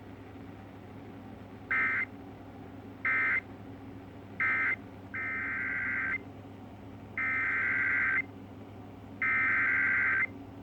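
Emergency Alert System SAME digital data bursts, harsh two-tone buzzing screeches. Three short bursts mark the end of one warning, and about half a second later come three longer bursts of about a second each, the header of the next warning. They sound over a steady low hum and hiss of the radio feed.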